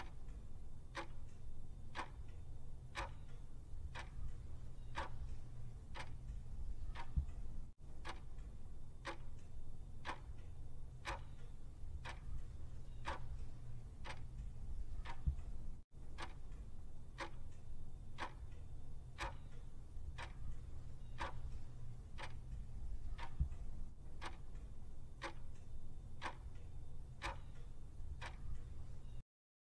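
Clock tick-tock sound effect for a quiz countdown timer, counting down the 30 seconds allowed to answer. It ticks evenly about twice a second over a steady low hum and stops just before the end.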